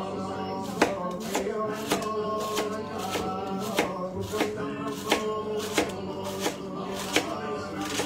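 Kitchen knife slicing through a fennel bulb onto a wooden cutting board, in regular strokes about three every two seconds, each ending in a crisp knock on the board. Background music plays throughout.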